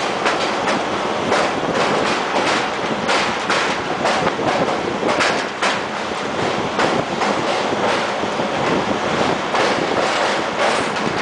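Wheels of a MEMU electric commuter train running over the track of a long rail bridge, heard from on board: a steady loud running noise with many quick, irregular clickety-clacks.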